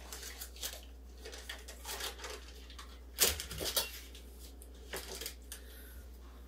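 Paper butter wrapper rustling and crinkling as a stick of soft butter is unwrapped, with a sharp knock on the stainless steel table about three seconds in and a smaller clink just after as the butter and a spreader are handled.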